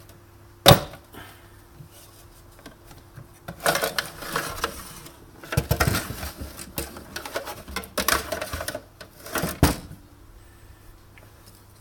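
Clicks and clattering of parts and tools being handled while an espresso machine is taken apart: a sharp click about a second in, then several bursts of rattling and scraping, and another click near the end.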